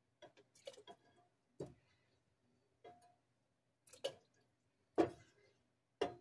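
Scattered light knocks and clinks of a ladle and a metal spoon against an aluminium pot and a plastic funnel while tomato gravy is ladled into glass canning jars. There are about seven short taps a second or so apart, the loudest about five seconds in.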